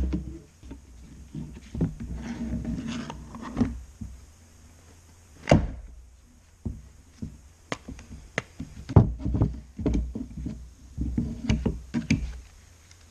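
Scattered knocks and clicks of hand tools and the metal recoil starter cover being handled on a wooden workbench, with some glove rustling between them. Locking pliers are set and clamped onto the cover to hold the starter pulley in place.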